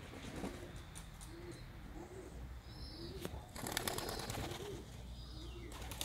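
Domestic pigeons cooing, a low coo repeated over and over, and about halfway through a short burst of clattering wingbeats as a pigeon takes off from the roof.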